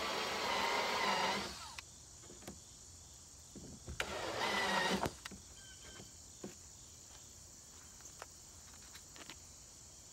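Cordless DeWalt drill whining as it bores a starter hole in the kayak's polyethylene hull, stopping sharply about a second and a half in. A second short burst of drilling comes about four seconds in, then only a few light clicks of handling.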